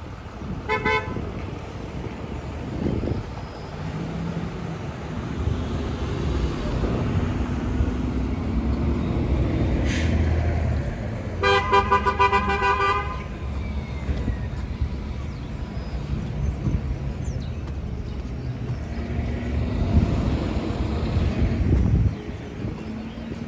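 Road traffic passing with a steady low engine and tyre rumble. A vehicle horn gives a short toot about a second in, then a longer honk of about a second and a half around halfway through.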